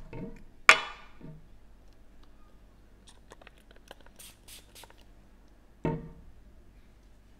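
A body mist pump spray pressed a few times in quick succession around the middle, short hisses of mist onto a paper test strip. Earlier comes a sharp clink with a brief ring, the loudest sound, and near the end a dull thump.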